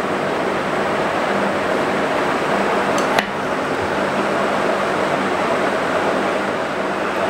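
Steady rushing background noise, with one sharp click about three seconds in.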